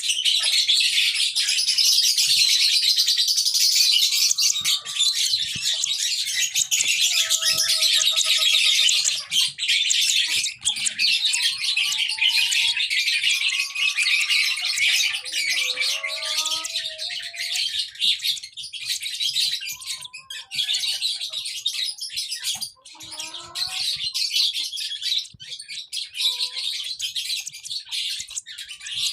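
Lovebirds chirping in a dense, continuous high-pitched chatter, with scattered lower whistled calls that slide up and down in pitch.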